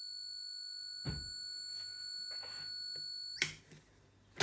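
Plug-in socket tester sounding one steady high-pitched tone, which cuts off with a click about three and a half seconds in. There is a soft thump about a second in.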